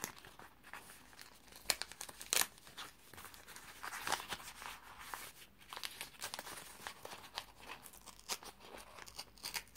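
Gift wrapping paper being torn and crinkled by hand in short, irregular rips and rustles, the loudest about two and a half and four seconds in.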